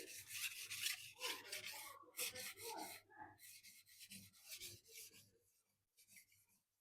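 Steel knife blade being drawn across a 1,000-grit silicon carbide sharpening stone: a faint gritty rasp in a run of short, uneven strokes that thin out near the end.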